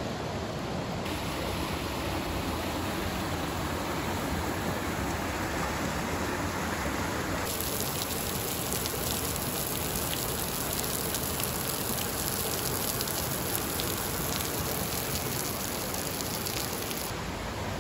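Steady rush of the gorge's stream and a small waterfall. From about seven seconds in, a dense patter of drops joins it: water dripping from the overhanging shale ledge into the plunge pool. The patter stops shortly before the end.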